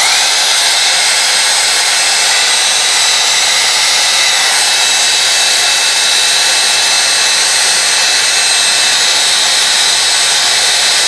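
Heat gun switched on, its fan spinning up with a short rising whine, then blowing steadily with a loud rush of air and a high steady whine.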